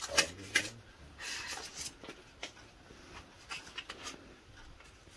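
Paper banknotes being handled and counted out, a few soft crinkles and flicks of the notes.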